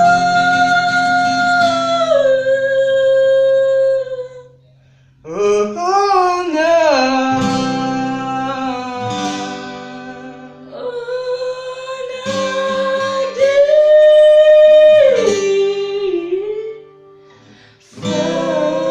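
A voice singing slow, held notes over acoustic guitar, breaking off briefly twice.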